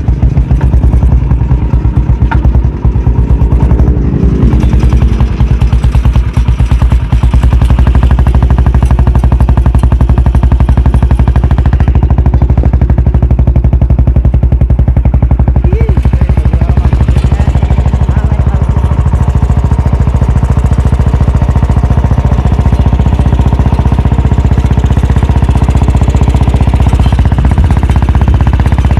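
An old diesel engine converted to run on petrol, fitted in a homemade motorcycle, running loudly with rapid, even firing pulses and a few brief changes in engine speed. Its builder says it still often detonates, perhaps because the ignition timing or the fuel is not yet right.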